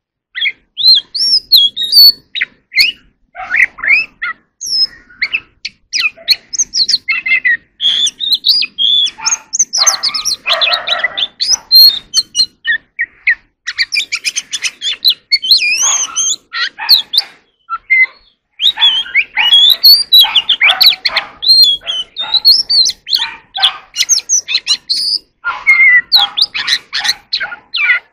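Oriental magpie-robin singing a long, varied song of clear whistles, chirps and quick chattering notes in short phrases with brief pauses between them.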